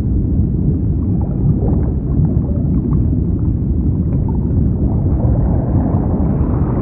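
Deep underwater-style ambience: a steady low rumble with faint bubbling, growing fuller near the end.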